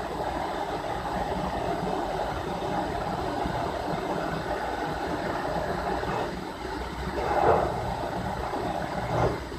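Milling machine running steadily with a drill bit in the spindle, drilling into a metal block, with a louder swell about seven and a half seconds in.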